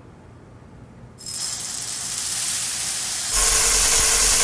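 Steam hissing out of a Cuckoo multi pressure cooker's release valve. It starts about a second in and turns louder and fuller near the end, with a steady tone and a low rumble under the hiss.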